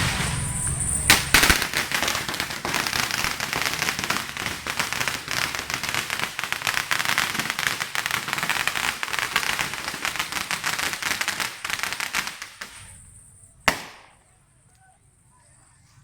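A string of firecrackers going off in a fast, dense crackle for about eleven seconds, then dying away, followed by a single loud bang near the end.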